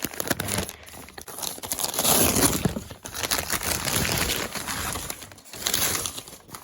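Packing wrap being crumpled and torn by hand as a package is unwrapped: irregular rustling and crinkling, loudest about two seconds in.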